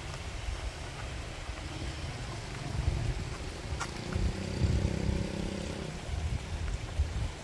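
Wind rumbling on the microphone during an outdoor walk, with a vehicle engine heard briefly about four seconds in.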